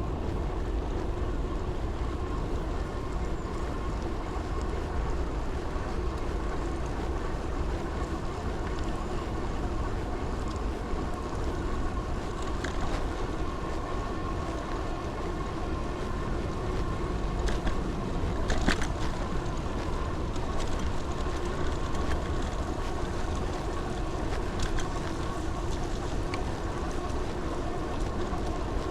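Steady running noise of a vehicle on the move, with a constant low rumble and wind buffeting the microphone. There are a few brief clicks or knocks about eighteen seconds in.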